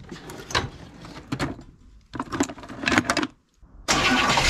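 Short clicks and knocks of tools and parts being handled. About four seconds in, a starter begins cranking the 1967 Cadillac's 429 V8 steadily for a compression test on the misfiring number 7 cylinder.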